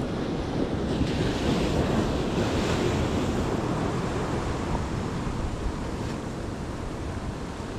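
Ocean surf breaking and washing over shoreline rocks, a steady rushing wash that swells louder about a second in and then eases off.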